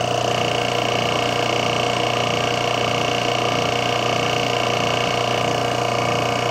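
Refrigerant recovery machine running steadily, a constant hum with a whine, as it pulls refrigerant out of a refrigerator's sealed system into a recovery tank.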